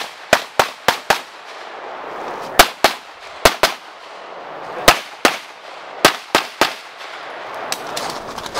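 Handgun shots fired in quick pairs and short strings of three or four, about a dozen in all, with brief pauses between the strings as the shooter moves between positions.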